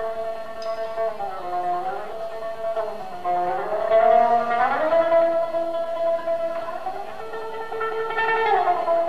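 Live punk band music: electric guitars holding long notes that slide up and down in pitch, with no singing.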